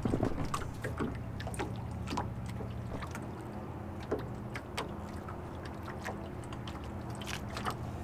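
Water lapping and slapping against the hull of a small skiff in short irregular splashes, over a low steady hum.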